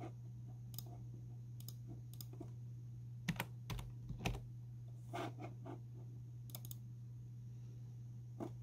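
Keys of a desktop computer keyboard clicking under typing fingers, in sparse, irregular strokes with a few louder taps around the middle, over a steady low hum.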